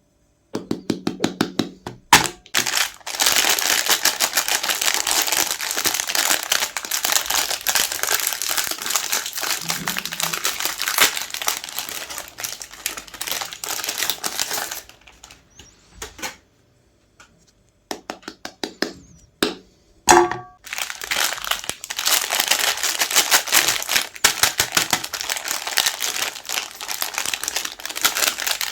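Meat grinder crushing chocolate-coated Magnum ice cream bars: a dense crackling and crunching. It stops for a few seconds past the middle, then starts again with a sharp crack.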